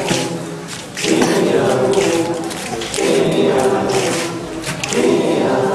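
A group of voices singing together unaccompanied, in short phrases with brief breaks between them.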